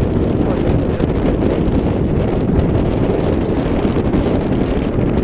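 Wind buffeting the microphone on an open boat at sea: a loud, steady low rumble with no breaks.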